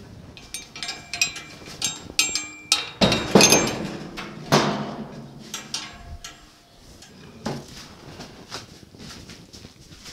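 Metal clinking and clanking: a run of quick, ringing metal strikes, then a few heavy knocks about three to four and a half seconds in, then lighter, sparser clicks, as tools and metal parts are handled.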